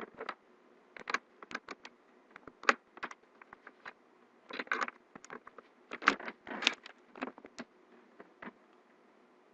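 Irregular clicks, knocks and short rustles of a USB cable being handled and pushed into a computer's USB port. They stop about eight and a half seconds in.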